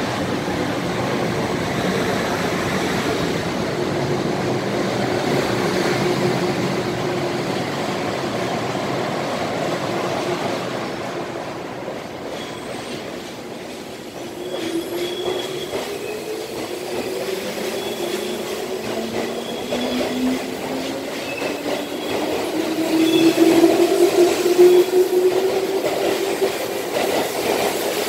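JR Central 211 series and 313 series electric multiple unit pulling out of the station. It stands with a steady hum, then from about halfway through its motors whine with slowly rising pitch as it accelerates past, loudest near the end, with brief high squeals from the wheels.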